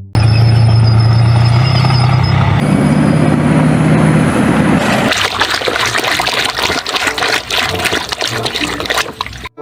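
Water running and splashing as toys are washed. A steady low hum sits under it for about the first half, then the splashing takes over. It starts and cuts off abruptly.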